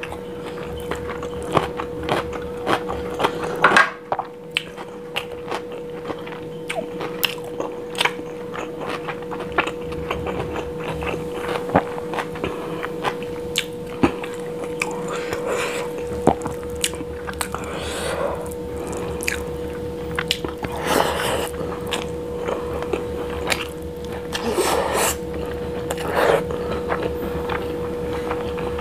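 Close-miked chewing and mouth sounds of someone eating biryani rice, paneer and potato by hand: many short wet smacks and clicks, with a steady hum underneath.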